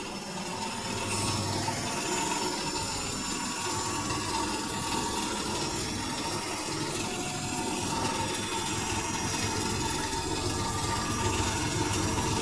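Electrolux W555H professional washing machine running, with a steady rush of water.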